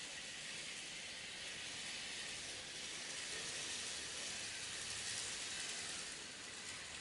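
N gauge model of a Hankyu 2300 series train running along the track into the station: a steady hiss of the small motor and wheels on rail that swells about five seconds in, then begins to fade as it slows to a stop.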